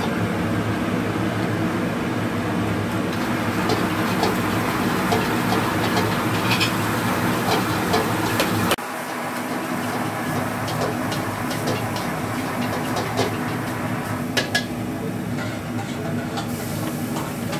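Steady roar of a gas wok burner with scattered metal clinks of a spatula against the wok. About nine seconds in the sound changes abruptly and runs on a little quieter.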